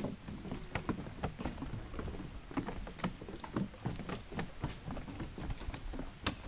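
Footsteps of several people walking, a run of irregular knocks and scuffs several times a second.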